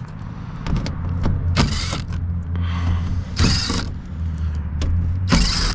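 Power driver backing 5/16 hex-head screws out of a rooftop air-conditioner's sheet-metal panels: three short runs with clicks and metal rattling between them.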